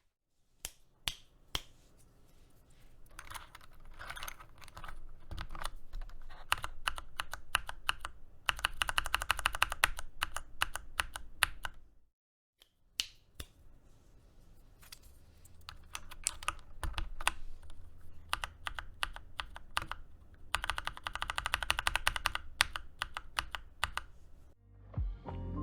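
Typing on a mechanical keyboard with tactile switches, JWK Cotton Candy and Gateron Brown, in two takes split by a brief cut about 12 seconds in. Each take builds up to a burst of fast keystrokes near its end.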